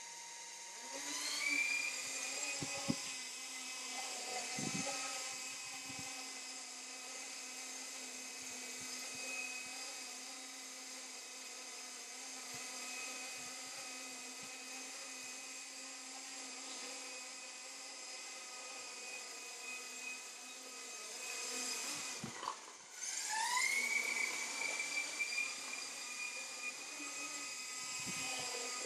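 Electric motors of a Walkera Dragonfly 4#1 micro RC helicopter, fitted with a Graupner Microspeed direct-drive tail motor, spool up with a rising whine about a second in and then run at a steady high-pitched whine. There are a couple of sharp knocks a few seconds in. About 22 seconds in the whine drops away for a moment, then spools up again.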